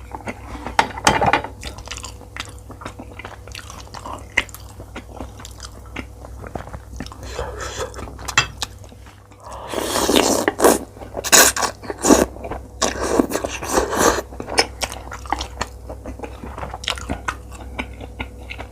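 Close-miked chewing and crunching of food in the mouth, with many short crisp clicks. A louder run of crunchy bites comes from about ten to fourteen seconds in.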